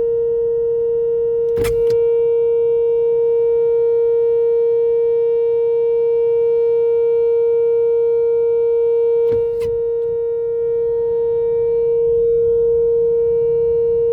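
Whelen WPS-4004 electronic outdoor warning siren sounding one steady, unwavering tone at full pitch during a siren test. Two brief clicks cut across it, one early and one about nine seconds later.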